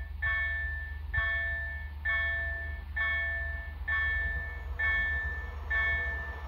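Railway level-crossing warning bell ringing with evenly spaced strikes, about one a second, each fading before the next. The warning is active because a train is approaching, and its noise begins to grow faintly near the end.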